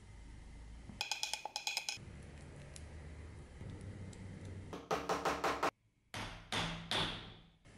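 Quick runs of hand-hammer taps on metal, each with a short bright metallic ring: about ten rapid taps, then a run of about six, and after an abrupt cut three heavier strikes that ring out longer.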